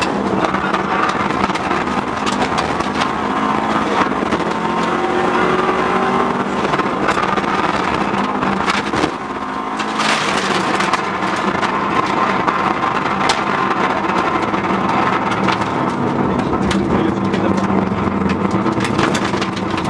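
Subaru Impreza rally car's turbocharged flat-four engine running hard under load as heard inside the cabin, the pitch shifting with gear changes, over loud road noise. Many sharp clicks and knocks run through it, with a brief rush of noise about ten seconds in.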